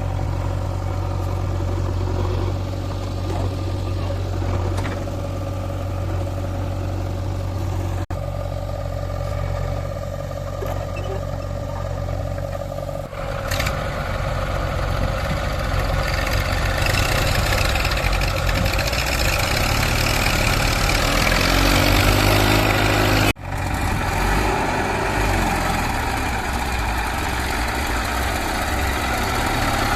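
Heavy diesel engine of a backhoe loader or tractor running steadily; about 13 seconds in it grows louder and rougher, with brief breaks near 8 and 23 seconds.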